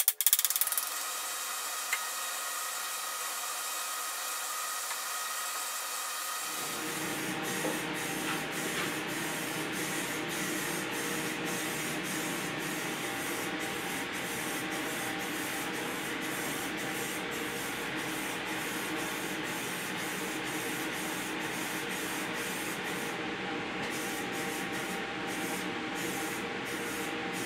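Aerosol spray paint hissing from a rattle can in repeated spurts, over the steady running of a box fan used as a paint exhaust. A few sharp hammer taps at the very start.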